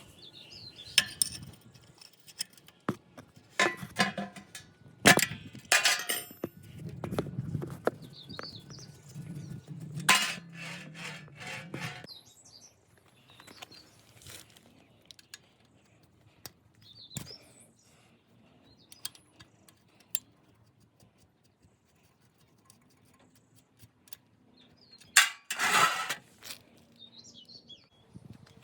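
Metal clinks and knocks of hand tools and parts being handled while working on a motorcycle during an oil change. There is a busy run of sharp strikes, then a quiet stretch, then another loud cluster near the end, with faint bird chirps in the background.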